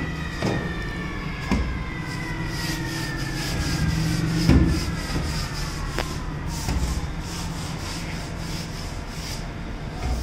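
Spindle of a CNC wood router winding down, its whine falling slowly and steadily in pitch over several seconds above a low hum. A few knocks sound along the way, the loudest about halfway through.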